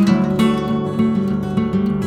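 Background music led by strummed and plucked acoustic guitar, with no singing.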